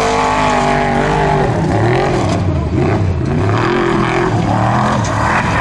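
Formula Offroad buggy's engine revving hard under load on a steep sand hill climb, its pitch rising and falling again and again as the driver works the throttle.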